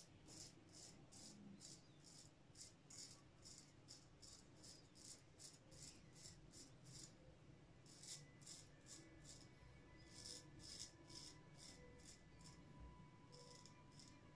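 Straight razor scraping through lathered beard stubble on the neck in short, quiet strokes, about three a second, in several runs with brief pauses.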